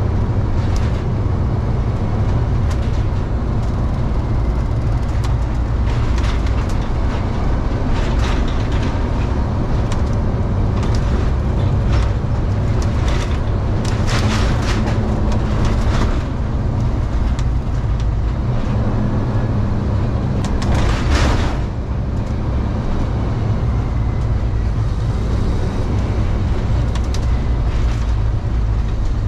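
Delivery step van driving, with a steady low engine hum and road noise filling the cab. Sharp knocks and rattles come now and then, the loudest about two-thirds of the way through.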